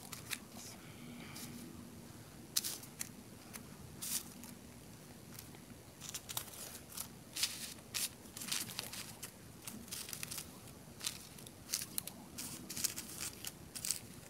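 Tissue-paper petals crinkling and rustling faintly as they are handled and laid down one by one, a scatter of short crinkles that come thicker in the second half.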